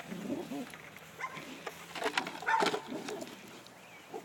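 A dog making short calls as it bites and tugs at the front of a padded bite suit, with a few sharp knocks about two seconds in.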